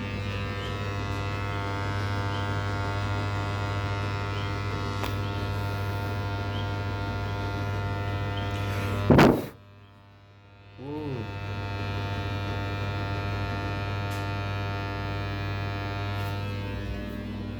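Washing machine running with a steady electric motor hum. About nine seconds in there is one loud thunk, the hum drops away for a second or so, then comes back with a brief rising whine.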